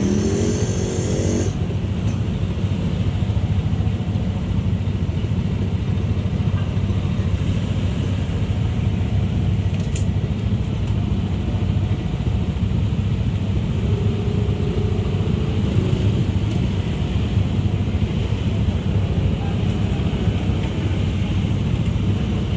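Steady low mechanical rumble with a hum, like a vehicle or train running close by. A higher rising sound breaks off about a second and a half in, and a faint tone comes in briefly about fourteen seconds in.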